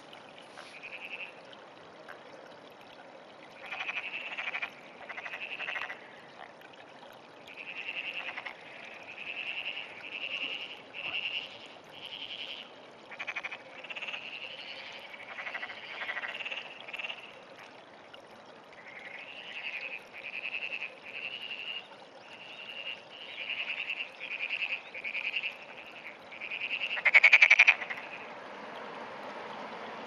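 Pond frog calling: a long run of short, pulsed croaks about one a second, with a louder, longer call near the end.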